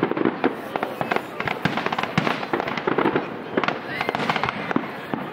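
Fireworks display going off: many sharp bangs and crackles in quick succession, several a second.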